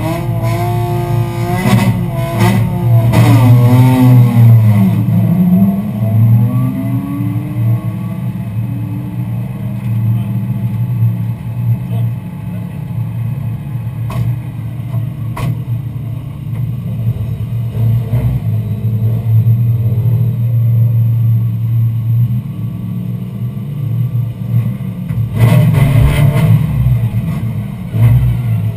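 BMW M3 race car's engine idling, heard from inside the stripped, caged cabin, with a few quick throttle blips in the first seconds and another burst of revving near the end.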